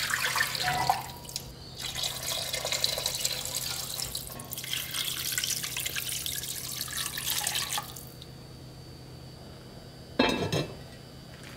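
Sauce and then water poured into an enamelled cast-iron pot over roughly the first eight seconds, in a few splashing pours. Near the end a heavy lid is set down on the pot with a single clank.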